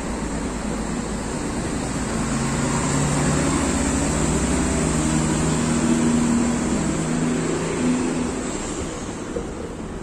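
Moving walkway running with a steady rumble and hiss, joined by a low engine-like drone that swells through the middle and fades near the end.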